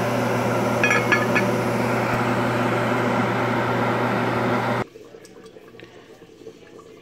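Metal pot lid clinking as it is settled onto the stew pot, about a second in, over a steady rushing noise with a low hum. The rushing noise cuts off abruptly about five seconds in.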